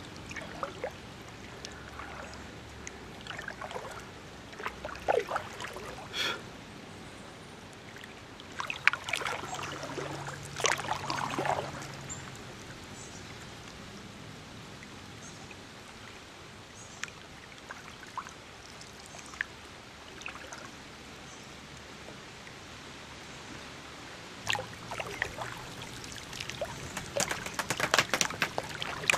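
Kayak paddle dipping into slow river water, splashing and dripping off the blades in short runs of strokes, with quieter gliding stretches between them.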